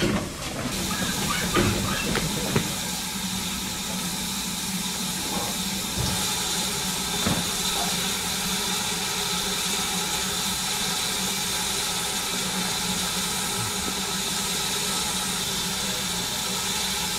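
BR Standard Class 4MT 2-6-0 steam locomotive standing, with a steady hiss of escaping steam and a low steady hum under it. A few knocks sound in the first couple of seconds.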